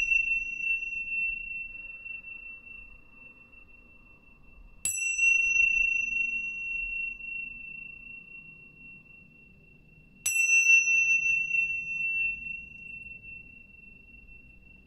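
Pair of tingsha cymbals struck twice, about five seconds apart, each strike a clear high ring that fades slowly; the ring of an earlier strike is still fading at the start. They are rung to cleanse the space.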